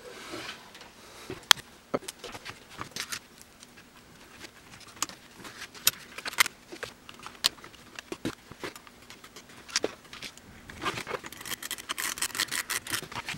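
Scattered light clicks and taps as foil-wrapped lithium polymer pouch cells with bolted aluminium tab plates are handled on a bench, with a denser run of crinkling and clicking near the end.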